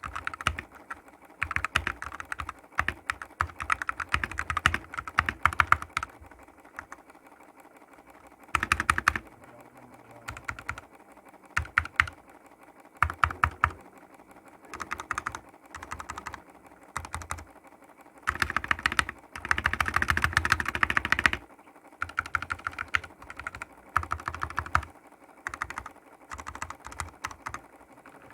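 Typing on a Tecware B68 mechanical keyboard with Gateron Yellow linear switches, in bursts of rapid keystrokes separated by short pauses. The longest, densest run comes about two thirds of the way in.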